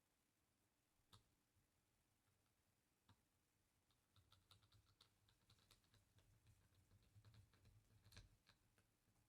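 Faint, irregular small clicks and ticks of airsoft pistol parts being handled and fitted: two single clicks, then a quicker run of light clicks, the loudest near the end.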